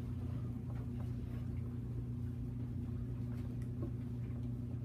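Steady low electrical hum, with faint scattered soft clicks from glitter-glue slime being stirred in a bowl.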